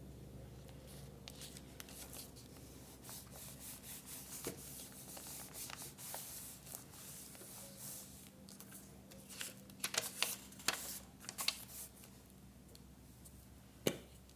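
Paper being rubbed and smoothed by hand in soft, hissing strokes, followed by a quick cluster of sharp clicks and taps and one louder tap near the end.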